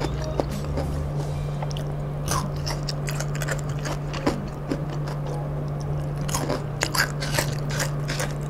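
Close-miked crunching and chewing of crispy kremesan, fried batter crumbs, with many short crackles scattered throughout, over a steady low hum.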